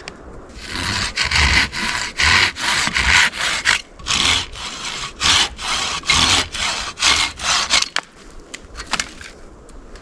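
Hand saw cutting through a piece of fatwood: a quick, even run of back-and-forth strokes that stops about eight seconds in.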